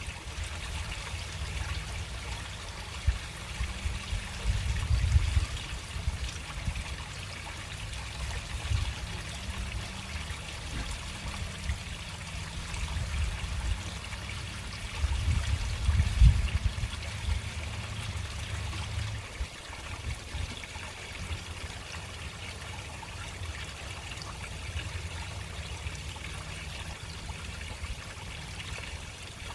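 Water running slowly through a storm drain, a steady trickling and splashing. Under it a low, uneven rumble swells twice, about five seconds in and again around sixteen seconds.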